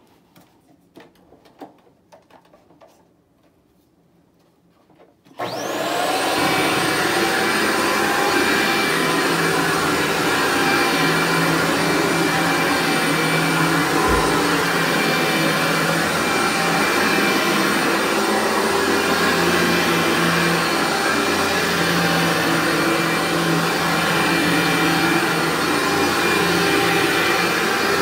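Workhorse upright vacuum cleaner switched on about five seconds in after a few faint handling clicks. Its motor whine rises quickly to speed, then runs steadily while it is pushed over thick medium-pile carpet.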